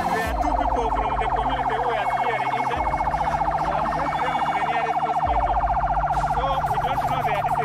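An emergency vehicle siren sounding continuously with a fast, pulsing warble.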